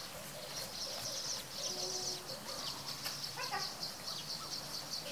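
Birds and insects calling: a high-pitched pulsing chirr runs steadily, with a short burst of quick chirps about three and a half seconds in.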